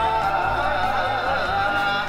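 Music: a high melody line with fast wavering ornaments over low, steady bass notes.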